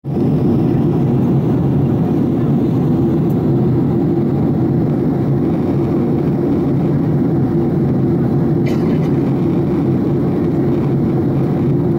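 Steady low roar of a jet airliner's engines and airflow heard inside the passenger cabin on approach to landing, with a faint click about nine seconds in.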